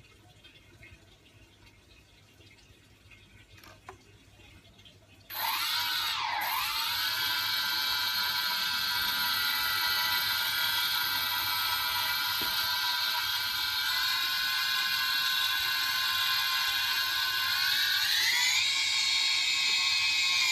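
Quanum Nova (Cheerson CX-20) quadcopter's brushless motors and propellers spinning up. A whine of several steady tones starts suddenly about five seconds in, dips in pitch briefly, then holds steady and steps up in pitch twice as the throttle rises.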